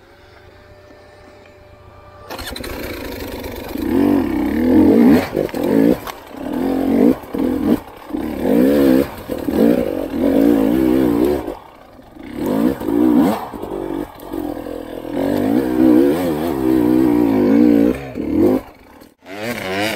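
Enduro motorcycle engine revving hard in repeated throttle bursts, its pitch wavering up and down, with short dips between bursts. It comes in suddenly a couple of seconds in, after a quieter start.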